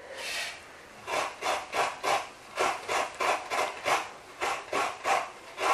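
Coconut flesh being scraped against the toothed metal blade of a traditional hand coconut grater, in repeated strokes about three or four times a second, shredding the meat into flakes.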